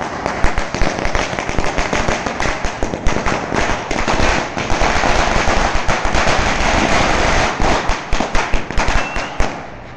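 Firecrackers going off on the ground in rapid succession, a fast, dense crackle of many sharp bangs that thins out and stops near the end.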